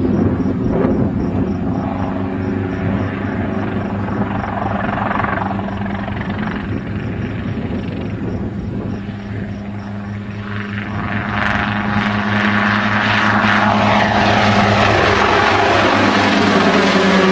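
Helicopter in flight, its rotor and engine running with a steady low hum. The sound grows louder and brighter about eleven seconds in.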